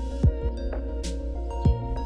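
Background music: held steady tones with two deep thumps that drop in pitch and a high swish between them.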